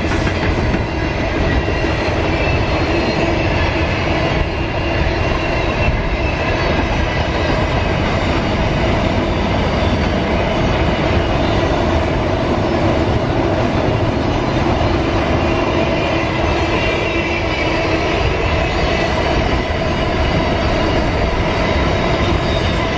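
Container wagons of a long intermodal freight train rolling past: steady rolling noise of steel wheels on the rails, with a few faint steady tones above it.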